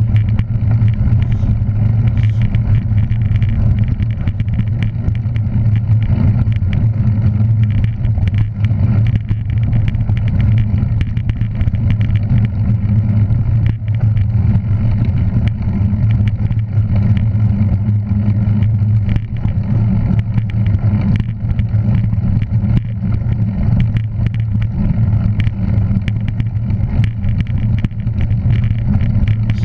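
A vehicle's engine running steadily while under way: a continuous low drone with some noise above it.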